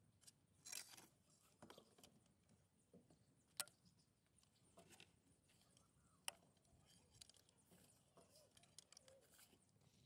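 Faint handling sounds of wood and vine lashing as a bamboo cage frame is bound by hand: a soft rustle, then two sharp clicks a few seconds apart, with scattered small ticks.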